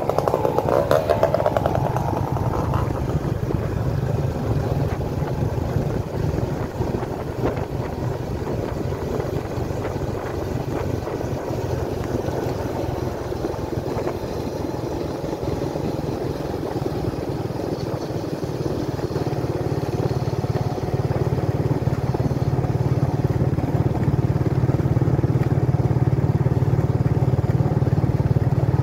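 Motorcycle riding along a paved road at a steady pace: the engine runs continuously under steady wind and road noise, growing louder over the last eight seconds or so.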